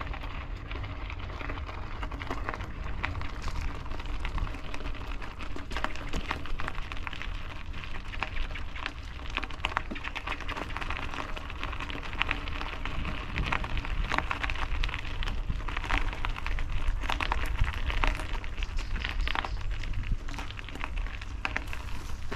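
Footsteps crunching on a gravel path, a continuous run of crunches, over a steady low rumble.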